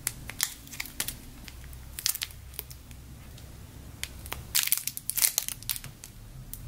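Clear plastic packaging bags crinkling in the hands as bagged squishy toys are picked up and turned over, in scattered crackles with a busier, louder cluster a little past four seconds in.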